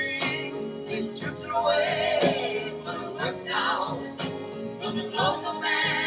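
Live band music: piano with cello and violin, and a man singing over them.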